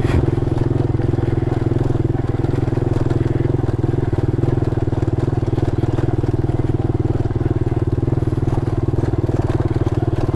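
Small single-cylinder mini motorcycle engine running steadily in second gear at an even speed, with a brief knock right at the start.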